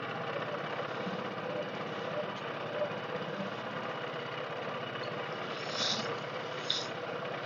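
Boat motor running steadily, an even drone. Two brief hisses come near the end.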